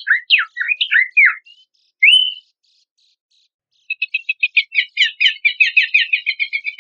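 Songbird calls: a run of quick, downward-slurred whistled notes, one rising note, a short pause, then a fast, rapid trill of many short notes.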